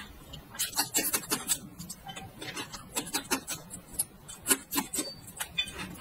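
Close-miked crunching and chewing of raw red chili peppers: a run of crisp, irregular crunches in quick clusters.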